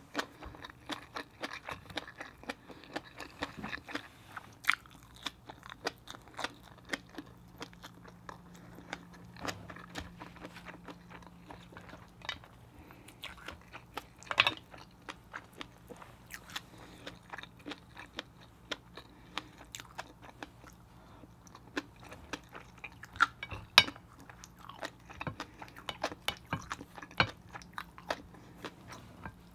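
Close-miked chewing of seafood, with irregular sharp clicks and crunches from mouth and shell. A faint steady low hum runs underneath.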